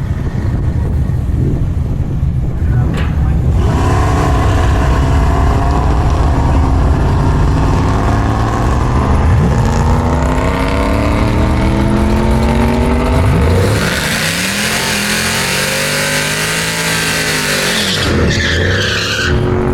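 Drag-racing cars on the strip: engines rumbling at the line, then launching and accelerating hard with the engine pitch climbing through the gears. Later they rush past with a loud hiss of tyre and wind noise and the engine note rising and falling.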